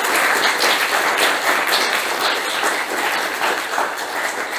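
Audience applauding, a dense continuous clapping that eases off slightly near the end.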